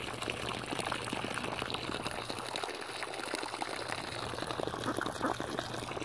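Water from a garden hose running into a muddy puddle while a flock of ducks dabble in it, with rapid wet clicks and slurps from their bills in the water.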